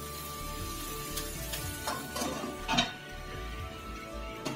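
A few light clinks of kitchen utensils, the clearest a little under three seconds in, over faint steady background music.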